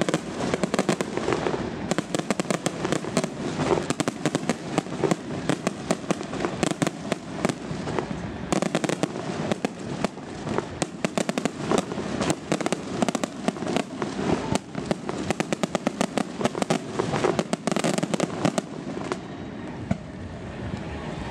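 Aerial fireworks display: a dense, overlapping run of sharp bangs and rapid crackling from bursting shells and crackling stars, thinning out near the end.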